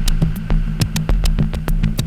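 Minimal dark electronic music played on a modular synthesizer and a Tempest drum machine: a steady deep bass tone under a pulsing low kick, with many sharp, clicky percussion hits scattered over it.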